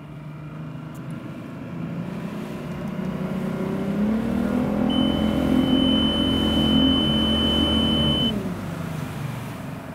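Engine running, its revs climbing about four seconds in, holding, then dropping again near the end, with a steady high whine over the loudest stretch.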